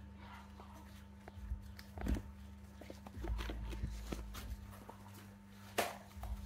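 Light scuffles and knocks of baby macaques moving about and climbing at a wall, over a steady low hum; two sharper knocks stand out, about two seconds in and near the end.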